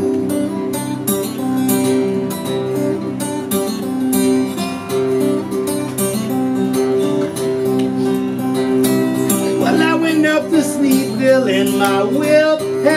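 Acoustic guitar strummed in a steady, repeating chord pattern as a song intro. About ten seconds in, a man's voice comes in singing over it.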